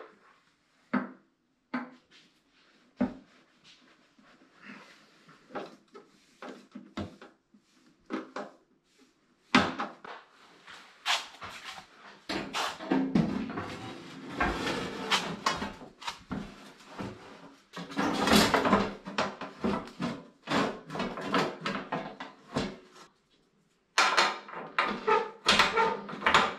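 Irregular knocks, clicks and rattles of painted tractor sheet-metal panels being handled and fitted onto the front end. The knocks are sparse at first and become busy, overlapping clatter from about ten seconds in.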